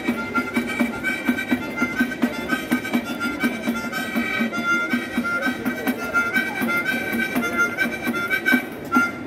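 A harmonica playing a melody over a steady pandeiro beat, with a single street musician playing both at once.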